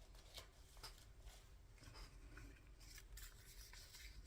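Faint paper handling: light rustles and a scattering of small taps and clicks as paper pieces are moved and pressed down on a desk.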